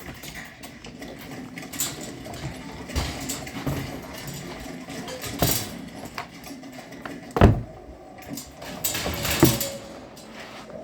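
Scattered knocks and bumps from things being handled while a puppy pen is cleaned, with one loud thump about seven seconds in and another a couple of seconds later.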